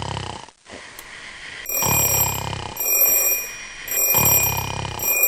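A person snoring, three loud, rattling snores about two and a half seconds apart, the kind of snoring the anti-snoring eye mask is meant to stop. A high, steady electronic ringing tone sounds alongside through most of it.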